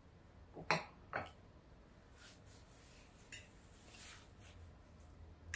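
A mug set down on its saucer with two sharp knocks, followed by a fork lightly clinking and scraping on a plate of food.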